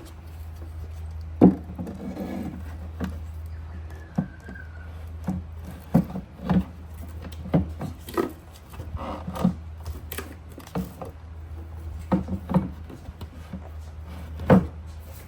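Irregular knocks and taps, a dozen or more at uneven intervals, the loudest about a second and a half in and near the end, over a steady low hum.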